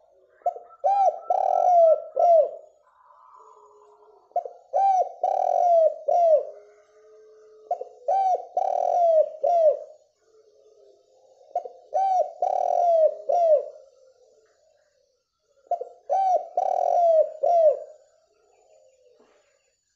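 Spotted dove cooing in five repeated phrases, about one every four seconds. Each phrase is two short coos, a longer drawn-out coo, then a short closing coo.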